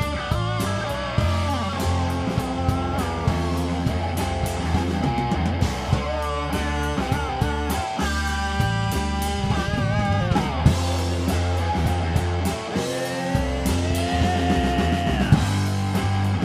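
Live rock band playing: electric guitar, electric bass and a drum kit with cymbals, with sustained guitar notes that bend in pitch over a steady bass line and drum beat.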